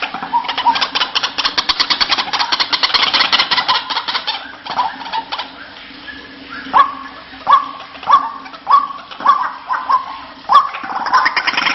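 White-breasted waterhen calling. It gives a fast rattling chatter for the first few seconds, then, after a short lull, a series of about seven loud separate notes roughly every half second.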